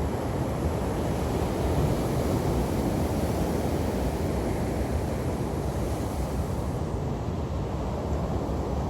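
Ocean surf washing onto a beach: a steady rush of breaking waves, swelling slightly about two seconds in.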